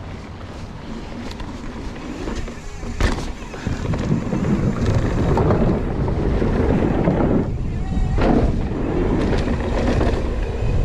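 Mountain bike riding down a dirt trail: heavy wind buffeting on the microphone over tyre rumble and rattling from bumps, with a sharp knock about three seconds in. The rumble grows heavier from about four seconds in.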